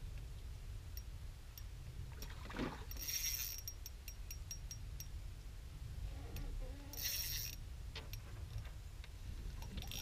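Fishing reel ticking while a hooked smallmouth bass is played on light line, with three short hissing buzzes of line going out. A low steady rumble runs underneath.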